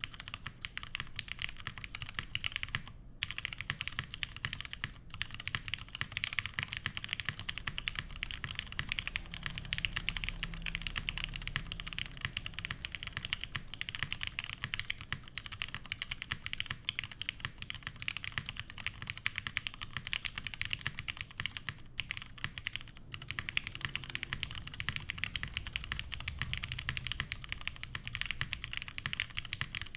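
Continuous typing on a Monokei Jane v2 ME top-mount mechanical keyboard with lubed Cherry Hyperglide Black linear switches, a polycarbonate plate and GMK keycaps. The keystrokes come in a dense, steady stream, with a few brief pauses.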